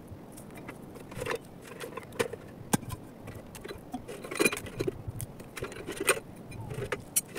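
Irregular metallic clinks and knocks of camping gear being handled around a tin-can camp stove: objects set into and taken out of the metal tin, with wooden kindling and a steel pot put down beside it. One sharp knock about three seconds in and a cluster of clatter around four and a half and six seconds in stand out.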